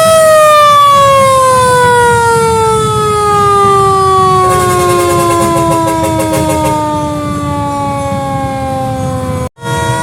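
Classic fire engine's siren at its peak pitch, then gliding slowly down over about nine seconds. A few seconds in, a second pulsing tone sounds briefly over it, and near the end the sound breaks off for an instant.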